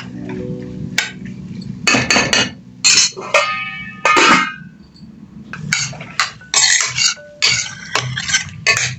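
Metal kitchen utensils and cookware clinking and clattering in irregular bursts, one with a brief metallic ring about three seconds in.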